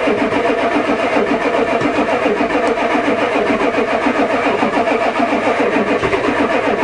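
Ford diesel truck engine turning over on its starter in a cold-start attempt, with a steady, rhythmic cranking. It keeps the same even pace throughout and never catches or revs up.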